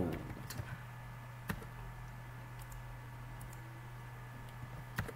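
A few scattered single clicks from computer input at a desk, with a steady low electrical hum under them.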